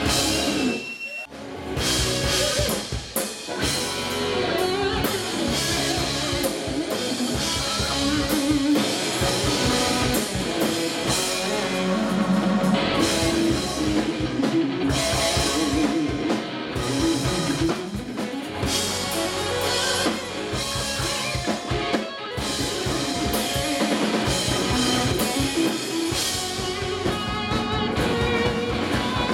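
Live southern rock band playing: electric guitars over a drum kit, with keyboard. The band drops out briefly about a second in, then the full band comes straight back in.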